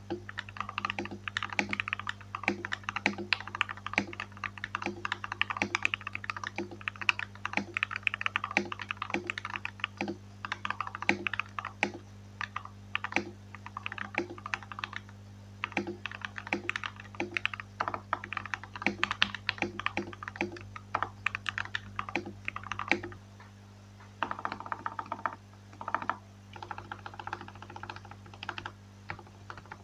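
Typing on a CMMK MK870 mechanical keyboard with lubed and filmed Gateron Yellow KS-3 linear switches and PBT cherry-profile keycaps: a steady run of keystrokes, with a short pause a little past two-thirds of the way through.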